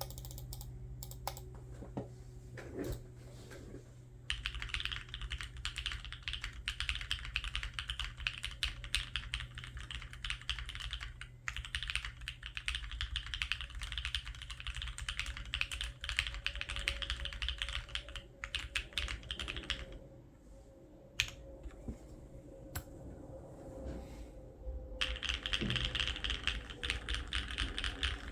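Typing on a Neo65 mechanical keyboard with hand-lubed Gateron Smoothies linear switches, a POM plate and ePBT keycaps. A few scattered keystrokes give way to fast continuous typing about four seconds in. The typing drops to a few isolated key presses around twenty seconds in, then picks up fast again near the end.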